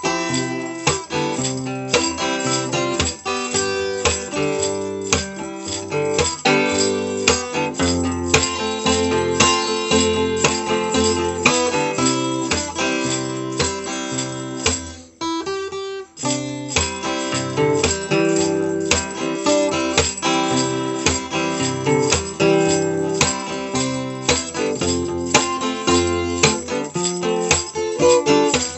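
Acoustic guitar playing, with plucked notes and strummed chords in a steady rhythm. It briefly thins out about halfway through before continuing.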